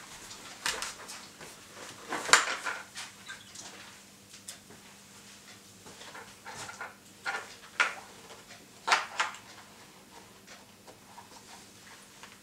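Hands handling a motorcycle helmet and a headset speaker while fitting it inside: irregular clicks, taps and short rustles, the sharpest about two seconds in.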